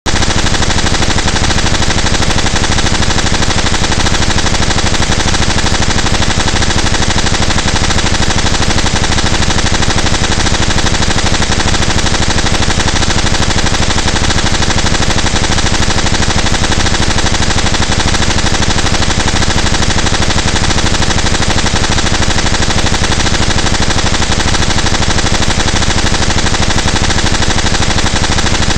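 Brush-roller potato washing and peeling machine running, giving a loud, steady, dense rattle of very rapid knocks.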